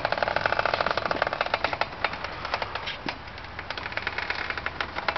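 Rapid, irregular clicking with a scratchy rasp from the front wheels of a 2004 Subaru Impreza WRX STI rolling slowly; the clicks come thick and fast for about two seconds, then thin out. It is an unexplained noise from both front wheels, not the brakes, that the owner thinks unlikely to be a hub bearing.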